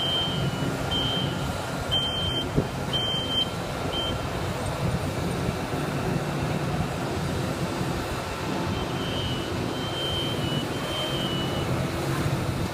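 Heavy construction machinery running with a steady low engine rumble, while a backup alarm beeps in short high pips through the first few seconds and again more faintly near the end. A single sharp knock sounds about two and a half seconds in.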